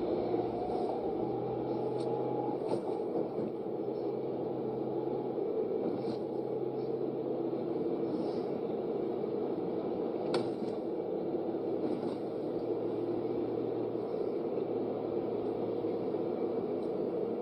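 Car driving, heard from inside the cabin: a steady engine and road hum with a few faint clicks, the clearest about ten seconds in.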